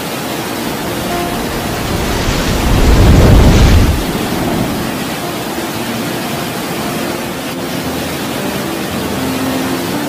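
Steady rushing of a waterfall, swelling louder with a deep rumble for a couple of seconds about two seconds in.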